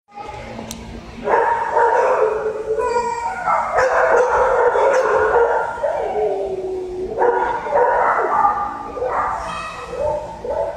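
Shelter dogs in kennels barking and howling, with long wavering, yipping cries that start about a second in.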